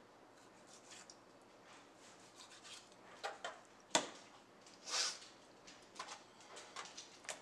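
Kitchen knife tapping and scraping on a plastic cutting board while trimming fat off a deer heart: scattered soft clicks, the sharpest about four seconds in, and a short scrape about a second later.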